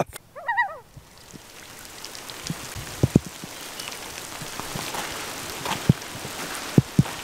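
Steady rain falling on wet pavement and lake water, building in after the first second, with a few louder single taps of drops landing close by.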